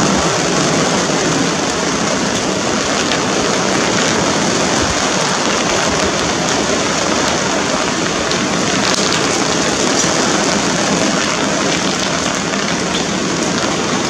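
Steady rain hiss, an even rushing noise with no distinct events.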